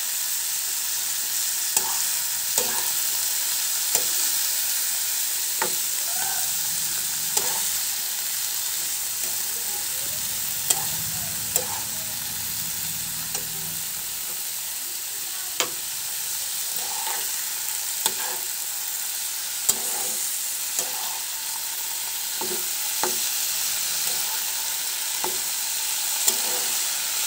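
Sliced green vegetable stems sizzling as they fry in oil in a non-stick frying pan. A metal spatula stirs them, clicking and scraping against the pan every second or two.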